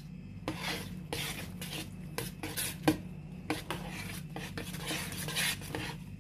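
A metal spoon stirring thick, sticky tamarind pulp and seeds in a plastic bowl: irregular scrapes and clinks against the bowl, starting about half a second in, as the pulp is worked off the seeds.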